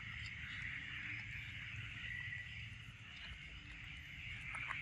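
Faint steady outdoor ambience: a constant high-pitched drone over a low rumble, with a brief higher tone about two seconds in.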